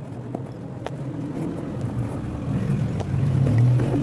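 A motor vehicle's engine passing close by in street traffic, its low rumble growing louder toward the end, with a few small clicks.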